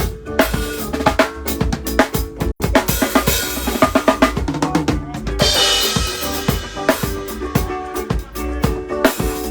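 Music driven by a busy drum-kit beat, with kick, snare and rimshot hits over sustained low notes. A cymbal wash comes in about halfway through, and the sound cuts out for an instant about two and a half seconds in.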